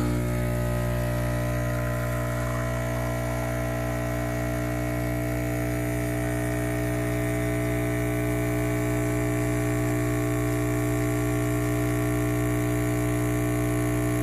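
Breville Infuser espresso machine's vibratory pump humming steadily while pulling an espresso shot.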